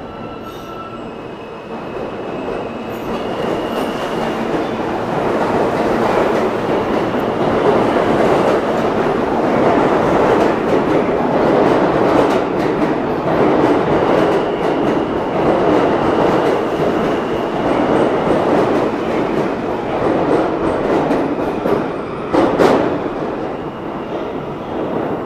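New York City subway trains, R160A and R32 cars, pulling out of the station and picking up speed past the platform, their wheels clattering over the rail joints. The noise grows louder over the first several seconds and holds steady, with one sharp bang near the end.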